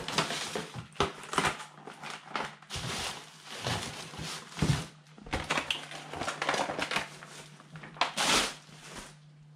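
Plastic packaging and bubble wrap crinkling and being crushed as it is pulled from a cardboard box and stuffed into a plastic bin bag, in a run of irregular rustling bursts. A faint steady low hum sits underneath.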